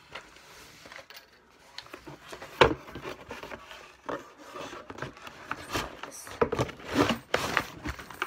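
Game pieces, cards and cardboard parts being handled and packed back into a cardboard box: scattered knocks, clatter and rustling, with one sharp knock about two and a half seconds in and a busier run of clatter near the end.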